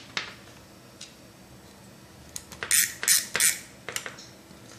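CT06A precision optical-fibre cleaver being worked to cut a stripped fibre: a few light clicks, then three short scraping snaps a little past the middle and another click after them.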